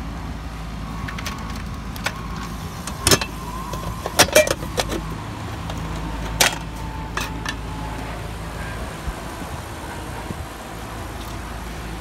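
Sharp clicks and clacks, the loudest about three seconds in, a cluster around four to four and a half seconds, and one near six and a half, from the heat pump's outdoor electrical disconnect box being handled to switch the unit on. A steady low mechanical hum runs underneath.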